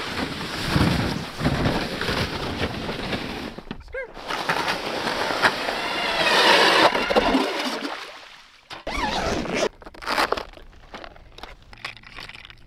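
Crunching and scraping of a loaded sled dragged over snow, then a battery-powered ice auger whining as it bores through the ice. Near the end there are light clicks and rattles of small lures in a plastic tackle box.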